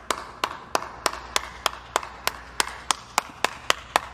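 A single person clapping hands alone at a steady pace, about three to four claps a second, speeding up slightly.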